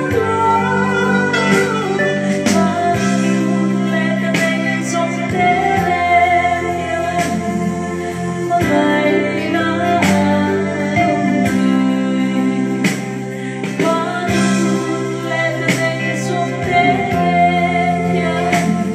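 A woman singing a Mizo song through a microphone, with long held notes, over instrumental backing music.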